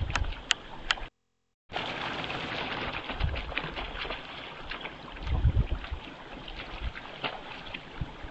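Outdoor ambience through a trail camera's microphone: a steady hiss with scattered sharp ticks and low wind buffeting on the microphone, heaviest about five seconds in. The sound cuts out completely for about half a second just after the first second, then resumes.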